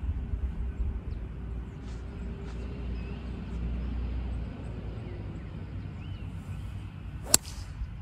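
A golf ball struck off the tee with a 4-utility (hybrid) club: one sharp crack of clubface on ball a little after seven seconds in. It is a clean strike, which the golfer calls perfect.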